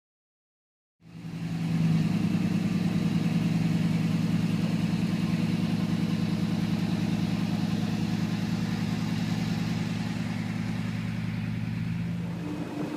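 Boat motor running steadily, a low, even drone that starts about a second in.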